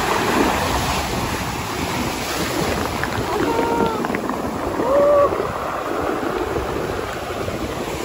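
Storm waves breaking and washing through a pebble beach, a steady rush of surf that swells briefly about five seconds in.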